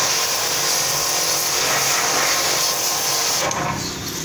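Small plunger-pump pressure washer spraying a jet of water onto a motorcycle engine: a steady hiss over the pump's hum. The spray drops away about three and a half seconds in.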